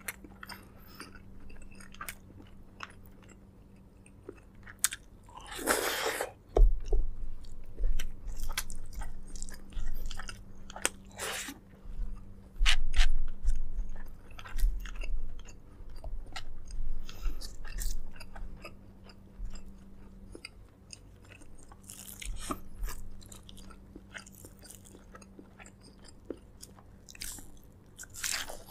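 Close-miked chewing and biting of braised pork leg: a run of wet mouth clicks and smacks, with a longer noisy burst about six seconds in. A faint steady hum sits underneath.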